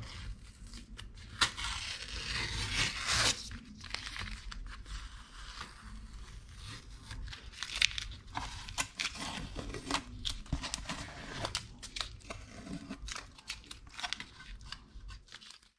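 Masking tape being peeled off a painted wooden panel: a run of short, crackling rips at irregular intervals, with the peeled strips crumpled in the hand.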